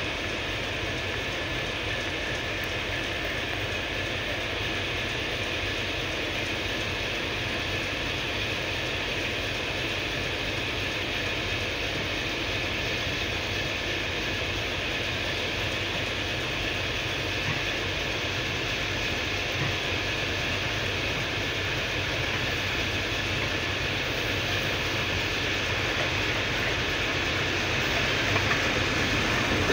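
TEP70BS diesel-electric locomotive approaching with a passenger train: a steady engine drone that grows slowly louder, most noticeably in the last few seconds as it draws near.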